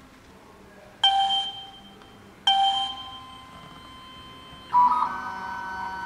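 Two bell-like electronic chimes about a second and a half apart, each fading out. Near the end a steady chord of held tones begins.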